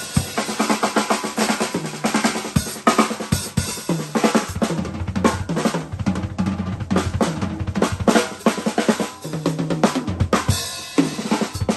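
Acoustic drum kit played in fast fills and grooves: bass drum, snare and cymbals struck in rapid succession, with a brief pause near the end.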